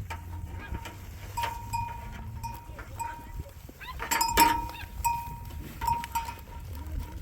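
Bells on a flock of goats and sheep clinking at irregular intervals, loudest about four seconds in, over a low steady rumble.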